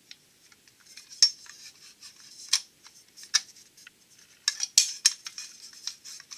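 Steel flex plate clinking and scraping against a Studebaker V8's crankshaft flange as it is turned by hand to line up its offset bolt hole. The clinks are irregular and sharp, with a few louder knocks about a second in, twice between two and a half and three and a half seconds, and a quick cluster a little before five seconds.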